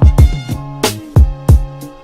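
Hip hop backing music with heavy kick drum hits about three times a second over sustained melodic notes.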